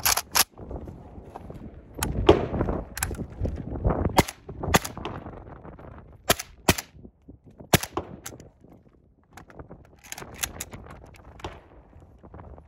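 Suppressed 13-inch Galil ACE rifle in 5.45x39 firing about a dozen single shots at an uneven pace, some in quick pairs about half a second apart, with a pause of a couple of seconds partway through.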